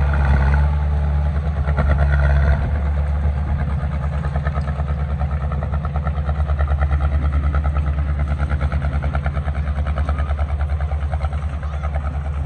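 Heavy diesel engine of earth-moving equipment running with a steady, fast throb, a little louder for the first two and a half seconds.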